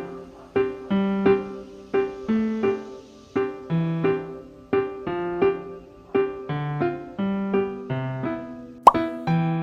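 Background piano music: gentle chords and notes struck at a steady, unhurried pace, each ringing and fading before the next. A single sharp click near the end.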